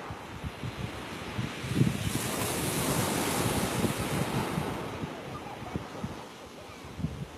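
Waves of a rough sea breaking on a pebble beach, one breaker coming in with a loud hiss about two seconds in and fading by about five seconds. Wind buffets the microphone throughout.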